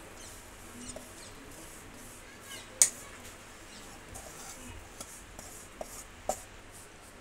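A spatula scraping the crumbly wheat-flour and jaggery mixture out of a stainless steel pan onto a steel plate, with a few sharp clinks against the steel, the loudest about three seconds in.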